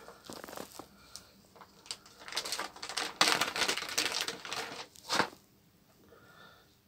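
Stiff plastic blister packaging being handled and pulled open, crinkling with many sharp clicks. It is busiest between about two and five seconds in and ends with one sharp snap just after five seconds.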